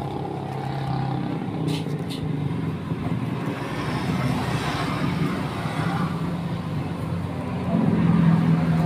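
Motorcycle engine running steadily, getting louder about eight seconds in. Two short clicks about two seconds in.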